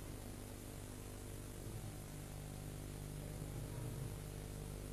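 Steady low electrical hum with faint hiss, the recording's background noise in a pause between recited phrases.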